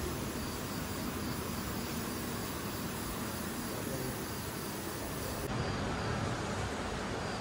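Night ambience: crickets chirping faintly over a steady hiss.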